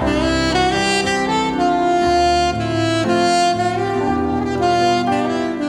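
Instrumental background music led by a saxophone melody, with a bass line moving underneath.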